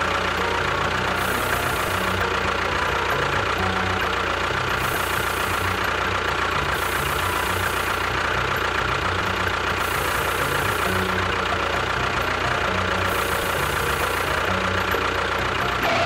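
A miniature tractor's motor running steadily, with a constant whine over a rattling mechanical noise. It starts and cuts off abruptly.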